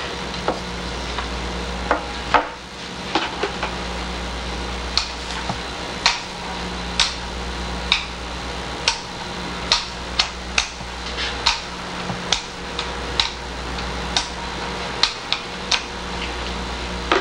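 Glue being spread over a particle-board panel with a hand glue spreader, worked back and forth in strokes. Each stroke gives a sharp click or tap, roughly one or two a second, over a steady low hum.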